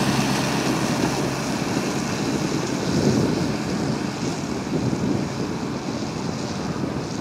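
Hot rod coupe's engine running as the car pulls away down the road, fading slightly, with wind noise on the microphone.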